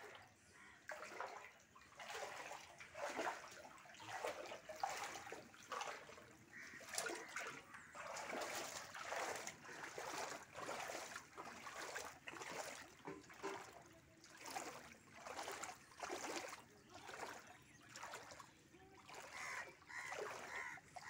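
Feet wading through floodwater, a splash and slosh roughly once a second.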